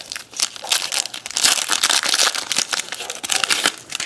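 Foil wrapper of a football trading-card pack crinkling and tearing as it is opened by hand, a dense run of crackles for about three seconds.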